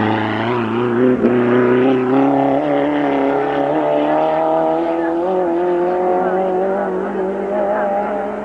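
Race car engine running at high, held revs, a steady note that wavers a little and slowly fades toward the end as the car moves away.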